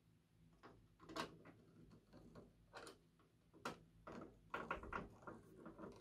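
Hand screwdriver turning a mounting screw that fastens a hard drive into the steel drive bay of a PC case: faint, scattered clicks and scrapes of metal on metal, coming closer together over the last couple of seconds.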